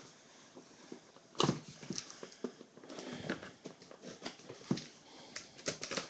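Scissors cutting the packing tape on a cardboard card case, with the box handled, knocked and slid on a table: irregular taps and scrapes. The loudest is a thump about a second and a half in.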